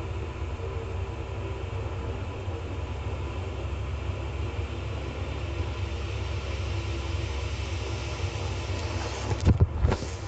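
A steady low rumble, with a faint steady hum above it, then a few soft knocks of the phone being handled against a blanket near the end.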